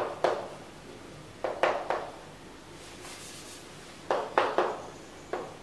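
Chalk writing on a chalkboard: short, scratchy chalk strokes and taps in quick clusters, one about a second and a half in and another about four seconds in.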